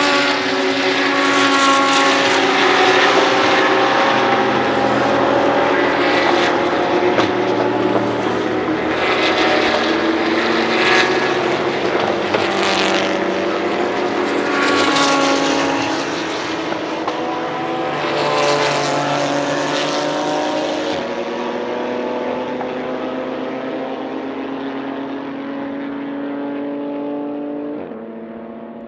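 GT race car engines running hard on a circuit, several at once, their pitch rising and falling as the cars accelerate, shift and go by. The sound fades gradually over the last several seconds.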